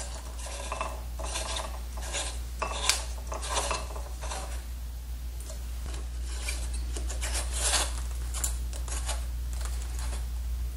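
Hands handling a metal lamp shade and screwing a light bulb into its socket: a run of short, irregular scraping and rubbing sounds, thickest near the start and again late on, over a steady low hum.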